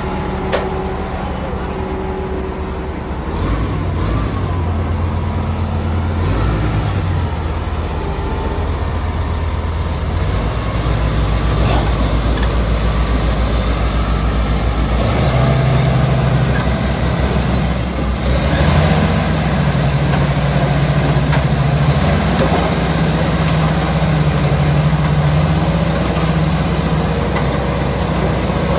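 Komatsu D85ESS-2 bulldozer's diesel engine running, its pitch and load shifting several times, with thin high squeals now and then.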